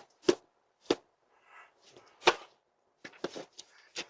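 A series of sharp knocks or whacks at uneven intervals, the loudest a little past two seconds in, with a quicker run of strikes near the end.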